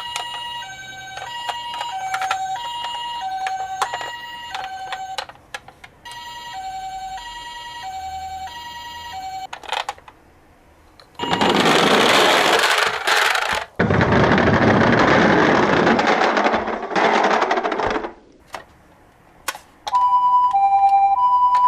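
Toy ambulance's electronic two-tone siren, the Japanese hi-lo 'pee-poh' ambulance call, switching between two pitches about twice a second. It stops and starts again a few times. In the middle come two loud bursts of hissing noise, a few seconds each.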